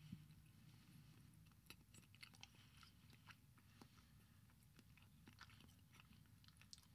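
Faint chewing: scattered soft clicks and small crunches of food being eaten, at irregular intervals over near-silent room tone.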